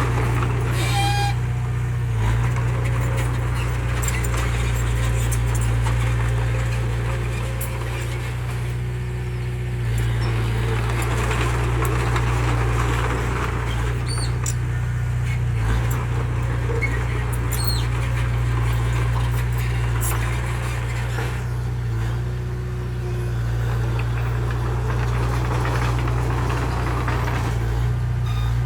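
Heavy diesel engine running steadily, with a few short high chirps over it.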